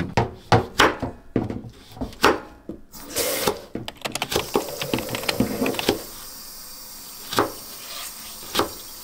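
Chef's knife chopping a carrot on a plastic cutting board: quick, irregular chops at first, thinning after a few seconds to single chops about a second apart.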